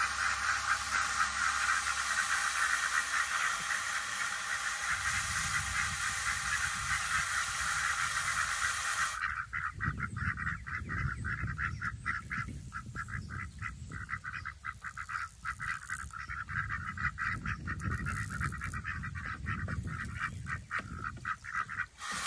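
A group of ducks quacking over and over in short, irregular calls. For about the first nine seconds the hiss of water running into a livestock trough sits under them, and it stops abruptly.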